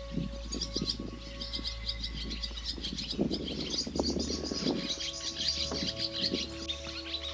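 Wild songbirds calling, a steady stream of short high notes, over soft background music of held notes that shift to a new chord about five seconds in.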